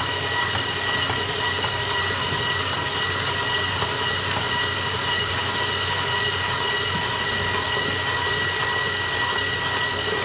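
Stand mixer running steadily, its motor whining with a steady high tone while the beater churns a thick butter cake batter as eggs are added one at a time.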